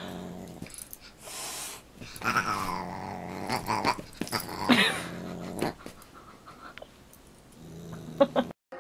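A dog growling in short spells while play-fighting with a Siamese cat, with a few higher, gliding cries from the cat mixed in, the loudest about two and a half and about four and a half seconds in.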